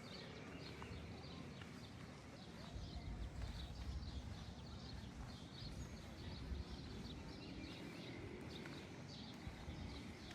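Faint small-town outdoor ambience: birds chirping in many short, repeated calls, over a low rumble that swells for a few seconds about a third of the way in.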